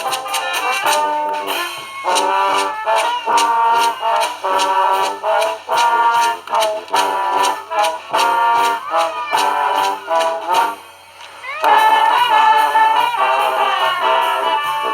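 Street brass band playing: trumpets and trombones in short, punchy repeated phrases over sharp percussion hits. About eleven seconds in the band drops out briefly, then comes back loud with a rising swoop into sustained brass chords.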